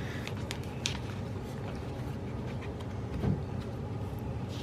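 Faint taps and light rustles of sticker sheets and planner pages being handled, with a slightly louder knock about three seconds in, over a steady low hum.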